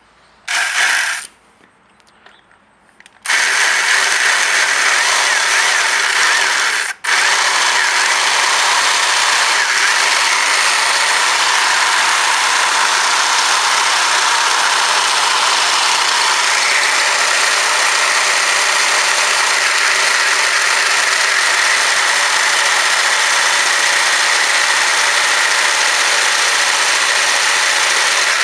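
Electric drill with a 1/2-inch metal bit drilling a hole. A short burst about half a second in, then steady running from about three seconds in, with a momentary stop near seven seconds.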